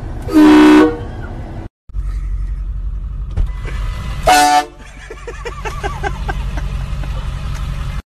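Two short blasts of a truck-mounted train horn, a chord of several tones, each about half a second long: one about half a second in, the other about four seconds in, over a vehicle's low steady rumble. After the second blast a person's voice rises and falls over and over.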